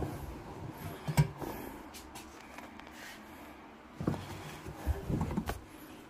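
Dried laundry being pulled by hand out of a small front-loading washer-dryer drum: cloth rustling, with a sharp knock about a second in and a cluster of bumps against the drum and door near the end.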